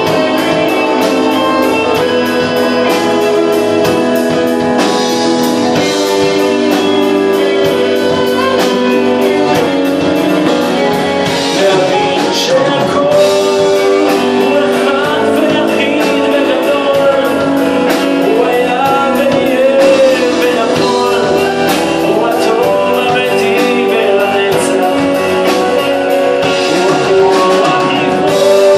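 Live rock band playing loud and steady, with electric guitars, bass, keyboard and a drum kit. A wavering lead melody bends in pitch over the band.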